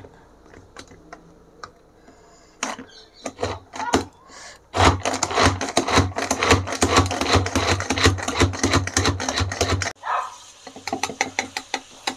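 Hand-operated vegetable chopper chopping onion: a few light clicks as it is fitted together, then a fast run of clicking and plastic clattering with a regular low thud beneath, for about five seconds, stopping abruptly near ten seconds in.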